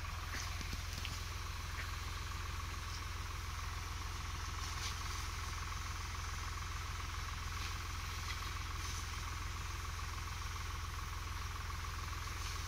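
Swaraj 735 FE tractor's three-cylinder diesel engine running at a steady speed to drive the orchard pesticide sprayer's pump: a constant low drone with a faint steady whine above it.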